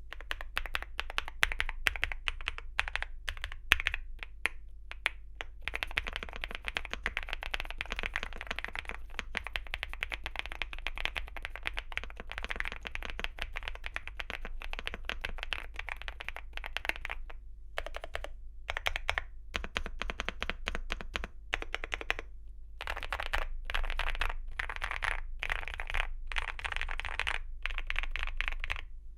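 Typing on a YUNZII AL68 aluminium mechanical keyboard with KeyGeek Butterfly linear switches and double-shot PBT Cherry-profile keycaps. It starts with separate keystrokes, runs into fast continuous typing, then goes in quick bursts with short pauses. A faint steady hum sits underneath.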